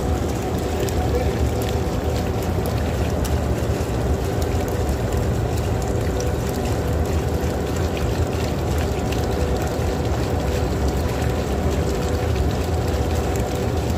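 Steady low rumbling background noise with a faint steady hum running through it.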